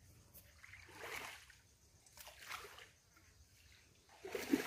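Shallow muddy water splashing and sloshing in short bursts as hands grope through it for fish, with the loudest splash near the end.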